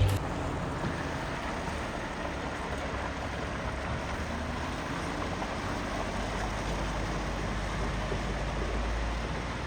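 A vehicle engine running steadily: a low rumble under an even hiss, swelling a little a few seconds before the end.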